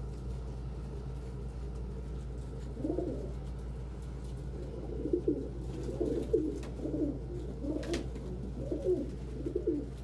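Domestic pigeons cooing: one coo about three seconds in, then a run of repeated coos through the second half, over a steady low hum.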